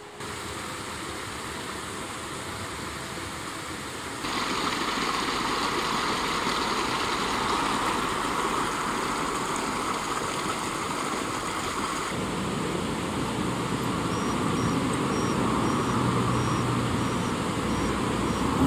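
Steady rush of flowing mountain-stream water, stepping up louder about four seconds in.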